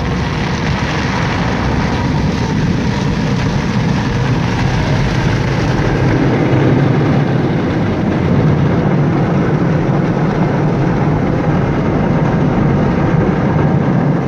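Automatic car wash heard from inside the car's cabin: water and foam spraying and washing over the windshield and body. It makes a loud, steady rushing noise, heaviest at the low end.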